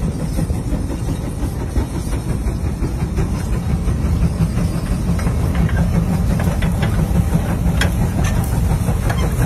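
Large steam traction engine pulling a wide gang plow under load: a dense, steady low rumble with scattered sharp metallic clanks from the plow frame and chain in the second half.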